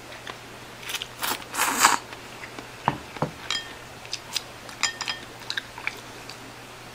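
Instant ramen noodles slurped in a few short bursts, then two soft knocks as the ramen bowl is set down on the wooden table, followed by scattered small clicks while chewing.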